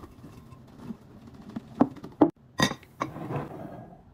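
Laundry pods dropping into a glass jar, with several sharp glass clinks and knocks as the jar and its glass lid are handled.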